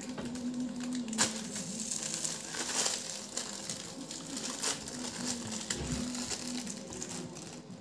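Hands mixing and crushing crispy snacks in a steel bowl: irregular crunching and crackling.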